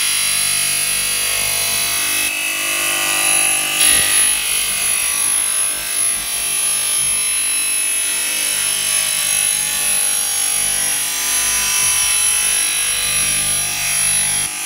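Spiral duct forming machine running, rolling galvanized steel strip into a spiral-seamed round pipe: a steady metallic hiss with a thin high whine.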